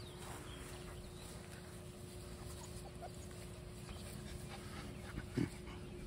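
Golden retriever puppies play-fighting, with faint whimpers and small yips and one louder short cry about five seconds in.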